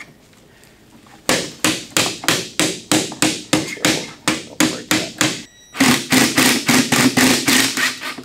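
Mallet tapping on the steel windshield top rail of a Willys MB, seating it down onto the glass seal: regular strikes about three a second starting about a second in, then after a brief pause faster strikes with a steady hum beneath them.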